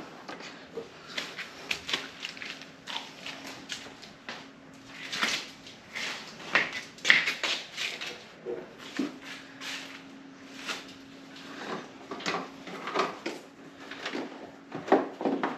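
Irregular rustling, scraping and light knocks as hands work a wiring harness up through plastic parts behind a car's front bumper and into the engine bay.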